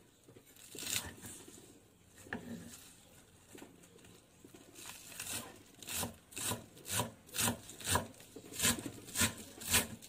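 Chef's knife chopping celery on a wooden cutting board: a few scattered cuts, then about halfway through a steady chopping rhythm of about two strokes a second.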